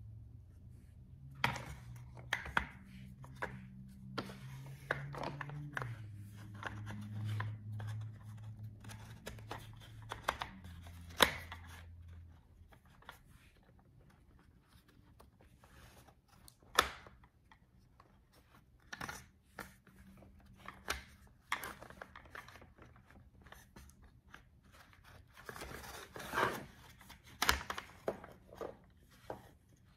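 Plastic and metal clicks, taps and scraping as the tilt rod and plastic parts are fitted back into a faux wood blind's metal headrail by hand, with a few sharper clicks standing out. A low hum that shifts in pitch underlies the first twelve seconds or so, then stops.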